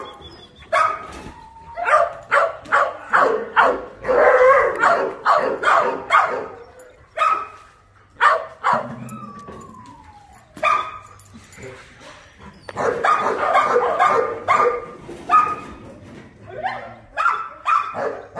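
Dogs barking in quick, repeated barks, with a lull about halfway through broken by one falling whine, then a dense stretch of overlapping barks and yelps.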